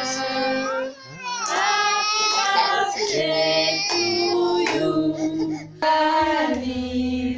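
A group of voices, a child's among them, singing a birthday song in long held notes. The singing breaks off briefly about a second in and again just before six seconds.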